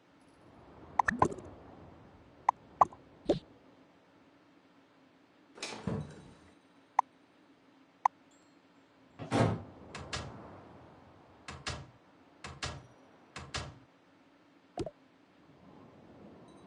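Containers and groceries being handled and set down in a refrigerator: a dozen or so short knocks and clicks of plastic and glass, a few brief clinks, and two longer rustling swishes, over a faint steady hum.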